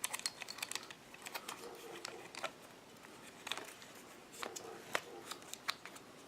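Scattered small metallic clicks and scrapes as the 12-gram CO2 cartridge is tightened into the Ruger Super Hawk air revolver, before it is pierced.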